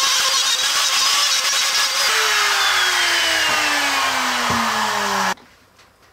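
Router running while cutting a recess into a wooden workbench through a template, then switched off about two seconds in and spinning down with a steadily falling whine. The sound stops suddenly near the end.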